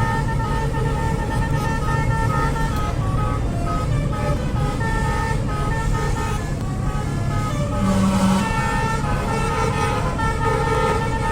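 A tour bus's Basuri telolet horn playing a tune, its notes changing every fraction of a second, over the low rumble of the bus running.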